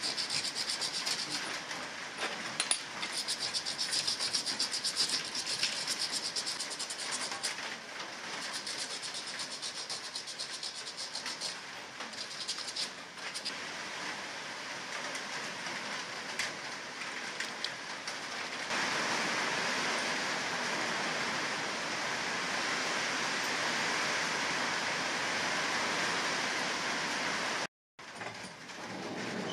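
Sandpaper rubbed by hand over a small hammered copper pendant blank on a steel bench: a scratchy rasping in quick strokes. About two-thirds of the way in it gives way to a steadier, even hiss.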